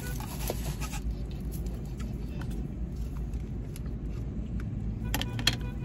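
Steady low hum inside a parked car's cabin, with light clicks of a plastic spoon scraping a paper food cup. A cluster of sharper clicks comes about five seconds in, the loudest about half a second later.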